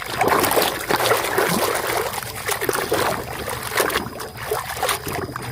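Water splashing and running over a muddy toy vehicle as it is washed, starting suddenly and going on steadily with many small splashes.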